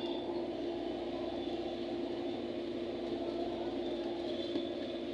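Steady mechanical hum with one constant low tone, unchanging throughout.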